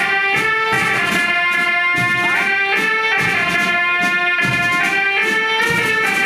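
Marching band playing a melody of long held notes, with a brass sound, over a steady drum beat.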